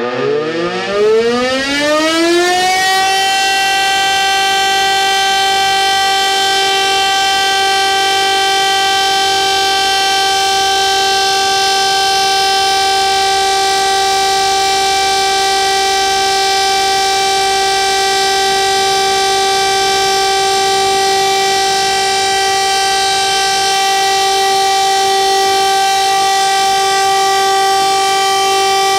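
Electromechanical civil-defence siren winding up over the first three seconds and then holding one loud, steady tone: the all-clear signal. As it starts, the tone of another siren falls away underneath it.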